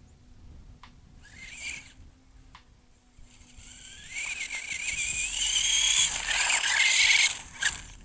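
Haiboxing Ratchet 1/18-scale electric RC buggy with a brushed motor: a short throttle blip, then the motor's whine rising steadily in pitch as the buggy accelerates, with tyre and drivetrain noise loudest near the end before it cuts off suddenly.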